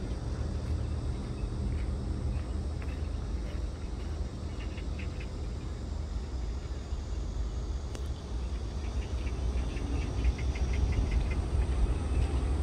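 Insects chirping in short runs of rapid, evenly repeated pulses, twice, over a steady low rumble.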